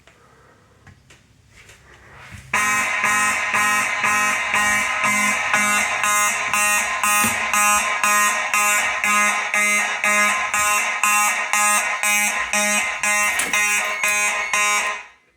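Simplex mechanical fire alarm horns sounding in alarm, set off by a heat detector under a magnet test. They start suddenly about two and a half seconds in with a loud, rapidly pulsing buzz, about three pulses a second, then cut off shortly before the end when the alarm is silenced.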